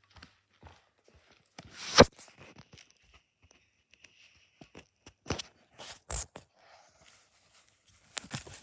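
Puffed corn crackers crackling and crunching as they are handled in a bowl, in scattered sharp clicks with the loudest crunch about two seconds in and a busier burst of crackling near the end.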